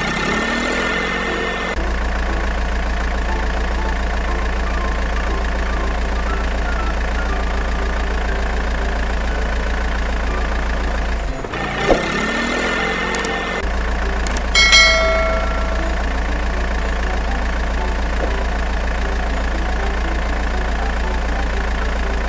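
Engine idling sound effect, a steady low hum with an even pulsing beat, laid over the toy footage. Partway through there is a click, followed a few seconds later by a short, loud, pitched beep.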